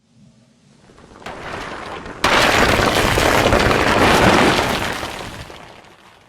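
Added crash sound effect for a mass of cubes falling: a noise builds from faint and steps up about a second in. A little over two seconds in, a sudden loud, dense crash cuts in, holds for about two seconds, then fades away.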